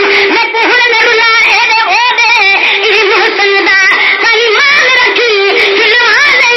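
Men singing a Sindhi naat (molood) in a high register, with long wavering, ornamented vocal lines over a steady held note.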